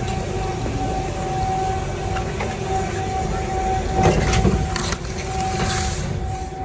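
Ski-area lift machinery running: a steady mechanical whine over a low rumble, with a louder clatter about four seconds in.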